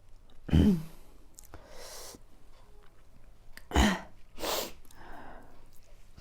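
A woman hiccuping twice, about three seconds apart, with noisy breaths in between. The hiccups are brought on by eating very spicy chilli noodles.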